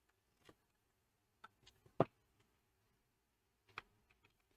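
Scattered faint clicks and taps, with one sharper click about two seconds in, from an oscilloscope probe being handled and set onto a circuit board.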